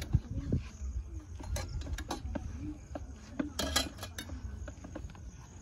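Serving spoons knocking and scraping against plastic plates and bowls as food is dished out, a scatter of short clicks with a quick cluster a little past the middle.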